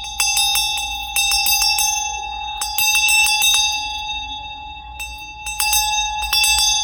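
Larger imported handbell with a handle (about 9.5 cm across, 20 cm tall) shaken in five short bursts, its clapper striking several times a burst. A clear, steady tone with bright higher overtones rings on between the bursts.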